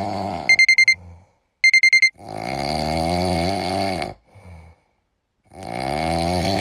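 Electronic alarm clock beeping in two quick runs of high beeps, followed by two long, drawn-out vocal groans with a wavering pitch.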